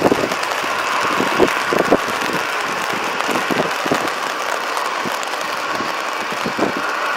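Airbus A320 jet engines running at taxi power, a steady whine, over the hiss of heavy rain, with scattered soft taps of drops close by.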